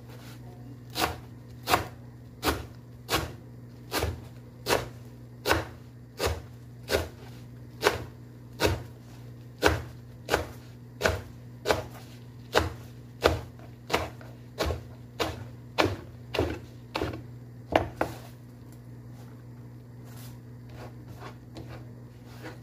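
Kitchen knife chopping leafy greens on a wooden cutting board: a steady, even chop about every three quarters of a second, stopping about eighteen seconds in.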